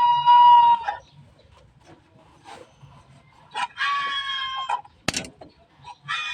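Rooster crowing: a long held crow ends about a second in, followed by two shorter crowing calls, with one sharp click between them.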